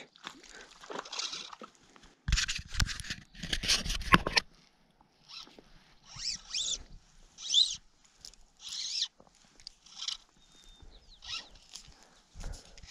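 Fly line being stripped in by hand through the rod guides while playing a hooked trout: rustling handling noise and a cluster of sharp zipping strokes about two to four seconds in. Then a series of short, high chirps with quick pitch glides, about one a second.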